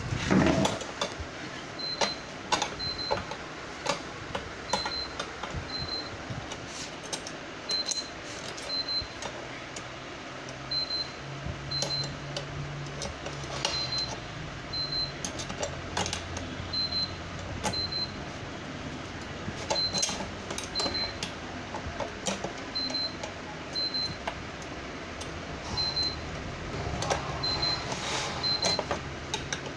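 Scattered clicks and knocks of metal tubes and plastic tricycle parts being handled and fitted together by hand, over a steady fan hum. A short high double beep repeats about every three seconds.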